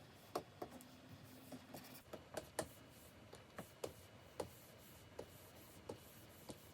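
Plastic pen tip of a stylus tapping and stroking on the screen of a Wacom Cintiq 24 Pro pen display: about a dozen light, irregular taps.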